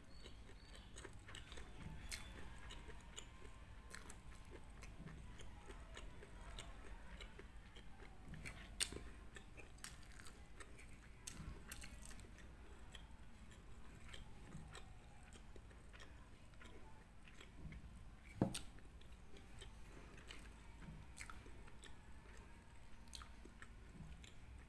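Close-up chewing and biting of homemade kimbap, seaweed-wrapped rice roll, with many small wet mouth clicks and soft crunches, and the roll being handled between bites. A sharper tick comes about 9 s in, and a louder one about 18 s in.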